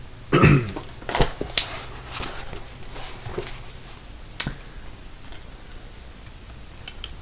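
Handling noise: a short low sound about half a second in, then a few sharp clicks and light rustling as small objects are picked up and moved.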